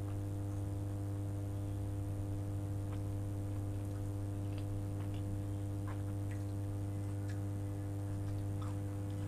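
Steady low electrical hum, the loudest sound throughout. Over it come faint scattered clicks from fingers handling and eating pickled ginger.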